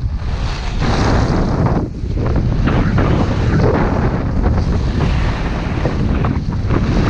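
Wind rushing over the microphone of a camera worn by a downhill skier, with the hiss of skis sliding over packed snow. The noise is loud and rumbling and dips briefly a few times.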